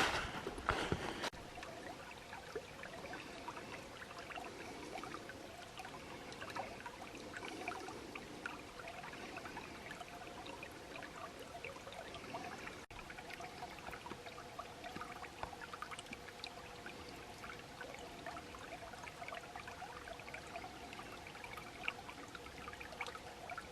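Small spring-fed creek trickling and splashing steadily, with a few knocks right at the start.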